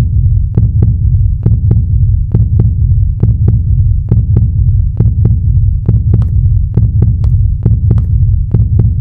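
Dramatic film sound design: a loud low drone with a heartbeat-like pulse on top, double beats repeating about once a second.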